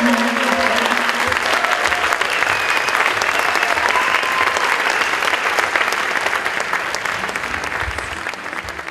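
Large audience applauding, with a few voices calling out over the clapping; the applause tapers off near the end.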